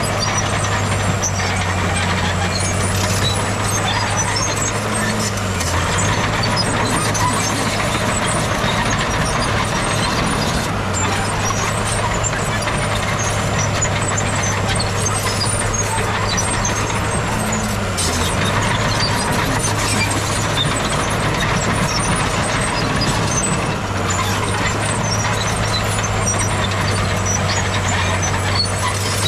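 Heavy earthmoving machine's diesel engine running steadily under load, its note dipping briefly twice, about five and eighteen seconds in, with scattered light clatter over it.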